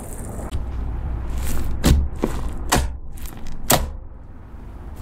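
Gold-foil-covered clear slime being squished and poked by hand, giving a run of five or so sharp pops and clicks about half a second apart in the middle, over soft squelching handling noise.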